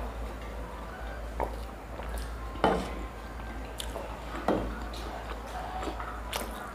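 Eating sounds: chewing and fingers handling momos and noodles on steel plates, with a few sharp knocks and clinks of steel plates and tumblers against the wooden table, the loudest two near the middle.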